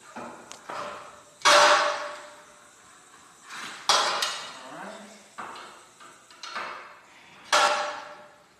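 Steel winding bars clanking against the winding cone of a garage door torsion spring as its tension is released little by little: three loud, ringing metal clanks a few seconds apart, with lighter clicks between.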